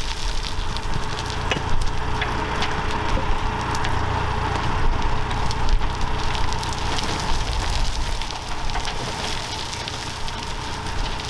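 Soil and stones pouring and rattling from the tipped skip of a site dumper into a trench, over the dumper's diesel engine running with a steady low hum. The pour eases off near the end.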